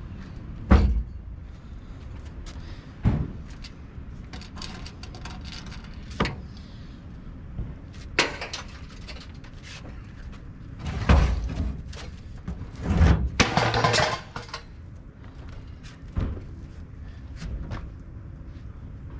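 A series of irregularly spaced thumps and clanks over a low rumble, the densest and loudest cluster about eleven to fourteen seconds in.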